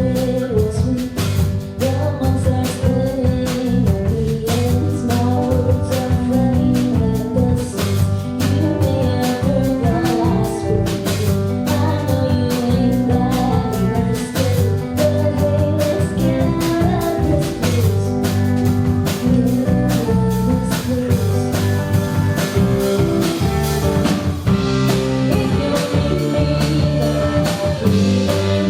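Live rock band playing at full volume: electric guitar, bass and drum kit, with a steady beat of drum hits under sustained guitar notes.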